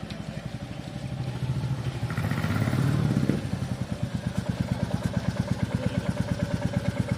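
Royal Enfield Classic 350's 349 cc single-cylinder engine idling with an even exhaust thump. The engine is revved once, building to a peak about three seconds in. It then drops back quickly to idle.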